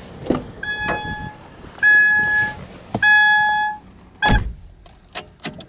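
Subaru Impreza Sport's in-car warning chime sounding three times, about a second apart, with the driver's door open. Then the driver's door shuts with a loud thump, followed by two light clicks.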